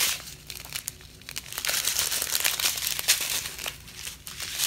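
Small clear plastic bags of diamond painting drills crinkling and rustling as they are picked up and handled, loudest midway.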